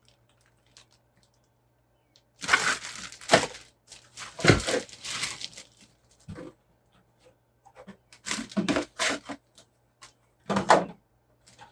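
Plastic kit packaging and clear plastic body parts being handled, rustling and crinkling in four short bursts, with a light knock in the second burst.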